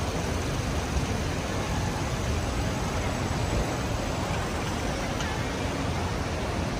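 Steady low rumbling noise, like the inside of a moving vehicle, with faint voices in the background.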